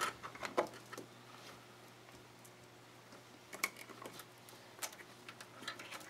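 Computer cables being handled and fed through the back of a PC case: a few scattered light clicks and taps of cables and connectors against the case panel, over a faint low steady hum.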